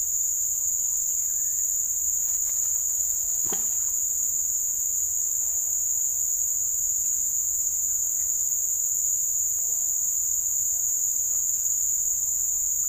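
Steady, unbroken high-pitched insect chorus from the riverside vegetation, with a single soft knock about three and a half seconds in.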